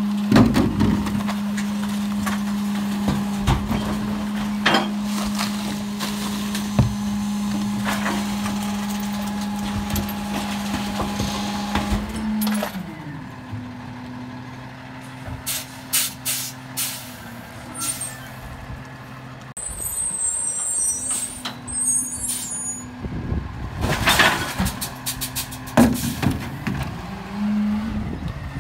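Freightliner M2106 diesel garbage truck running with the engine held up steadily while the Heil Durapack 5000 rear loader's packer cycles, with clanks and knocks of recyclables in the hopper. About halfway through the engine drops back to idle as the packing cycle ends, and a few seconds before the end there is a loud hiss of air from the air brakes.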